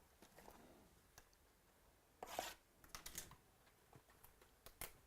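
Faint handling of trading cards and packaging: a brief rustle a little over two seconds in, then a few light clicks.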